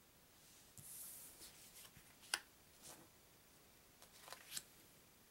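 Brain Games challenge cards handled on a wooden table: a faint swish of a card sliding about a second in, then several light clicks and taps as cards are flipped and laid down, the sharpest a little past two seconds in.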